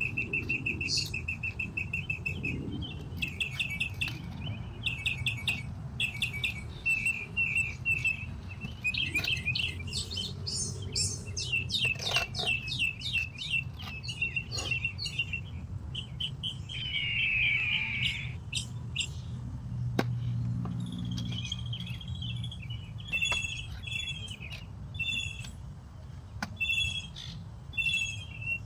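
Small birds chirping and trilling, with many short high notes and quick rattling trills one after another, over a steady low rumble.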